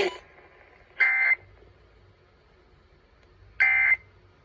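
Two short electronic alarm beeps, each about a third of a second long and high-pitched, sounding about a second in and again near the end.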